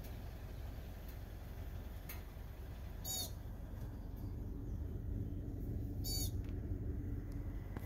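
A pika calling twice, about three seconds apart: each call a short, high-pitched squeak, heard over a steady low rumble.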